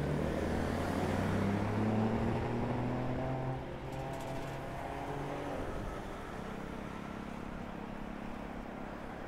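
A motor vehicle's engine running close by in city traffic, a pitched hum that drops away about three and a half seconds in, leaving a quieter steady traffic hum.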